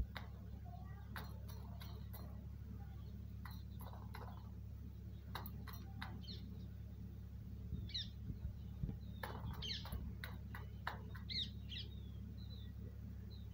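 Peacock's beak clicking against a metal tin as it drinks, a series of sharp taps. Short high bird chirps come in over the second half, over a steady low hum.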